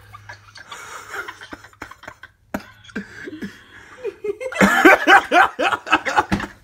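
Laughter breaking out loudly in quick bursts about four and a half seconds in, after a quieter stretch with a faint low hum.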